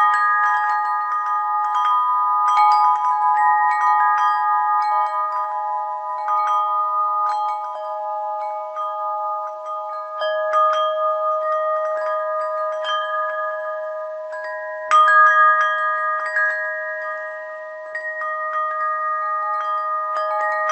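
Wind chimes ringing: small metal chimes struck at irregular moments, a handful of pitches overlapping and ringing on for seconds. A louder cluster of strikes comes about three-quarters of the way through.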